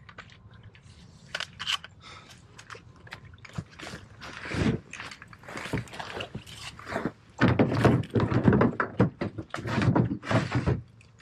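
A run of irregular knocks, thunks and rustling clatter, as of gear being handled and shifted by hand, busiest and loudest in the last few seconds.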